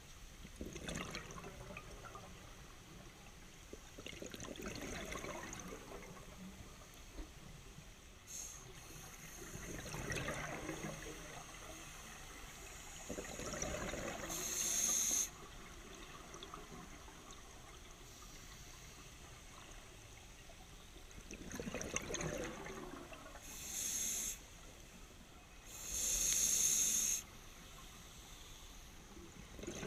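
Scuba breathing through a regulator underwater: slow breaths every few seconds, with bubbling exhalations and a few sharp high hisses, the loudest about two-thirds of the way through and near the end.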